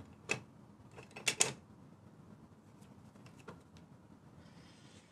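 A few light clicks and taps of painting tools being picked up and handled at the palette: one just after the start, a quick cluster of two or three about a second and a half in, and a faint tick or two in the middle.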